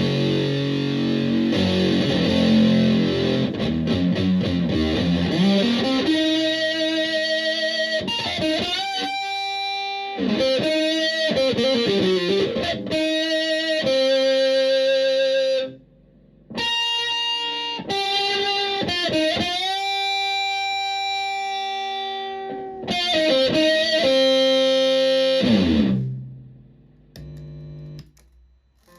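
Electric guitar played through a Green Ringer octave-up fuzz pedal. It opens with thick, low distorted chords for about six seconds, then moves to long sustained lead notes with bends that ring out and stop abruptly twice, the second time near the end.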